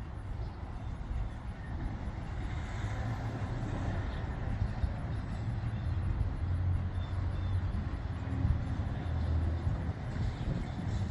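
Low outdoor rumble, heaviest in the bass and slowly swelling, with no siren sounding.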